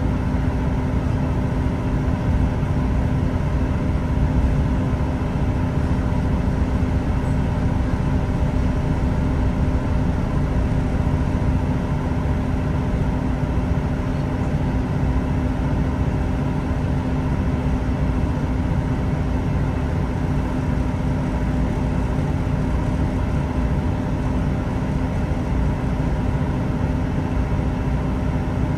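Class 166 diesel multiple unit heard from inside the carriage while under way: a steady drone of the underfloor diesel engine and the rumble of the train running on the track, with a constant hum that holds one pitch throughout.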